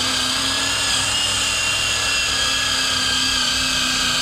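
Cordless drill spinning a wire wheel brush over rusty sheet metal, scrubbing off surface rust: a steady motor whine with the scratch of the wire bristles.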